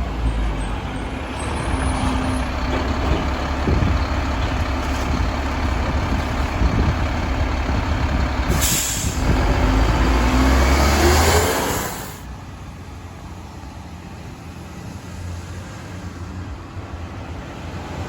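Mack LEU garbage truck's engine running hard with a deep rumble, a loud hiss of air about nine seconds in, and a rising whine. At about twelve seconds it drops back to a quieter idle.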